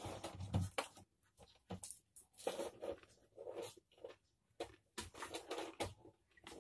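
Close-up chewing of a mouthful of rice and raw leafy greens: irregular wet smacks and crisp crunching noises.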